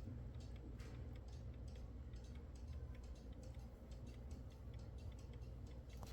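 Faint, steady ticking of an 1890 Junghans B32 walnut-cased alarm clock's running movement, over a low steady hum.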